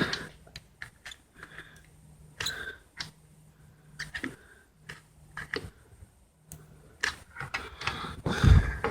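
Scattered clicks and rustling handling noise from hot-gluing the coils inside an opened computer power supply, with a faint low hum coming and going and a heavier thump near the end.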